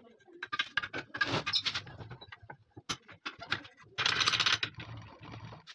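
A metal AKM magazine body being handled on a wooden workbench and pushed against a steel bench vise: a run of short clicks and knocks, with a louder scrape about four seconds in.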